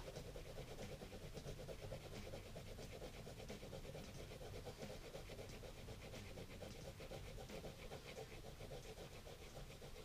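Faint scratching of a mechanical pencil's graphite on sketchbook paper in quick, repeated strokes: cross-hatching to shade in an area.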